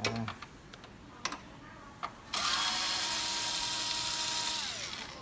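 Cordless drill-driver motor spinning for about two seconds with a steady whine, which falls in pitch and dies away as the trigger is let go. A few light clicks come before it.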